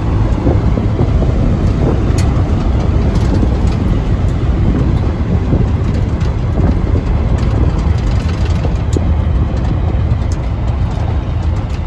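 1979 Chevy Big 10 pickup driving at highway speed, heard from inside the cab: a steady low engine and road rumble with occasional small ticks.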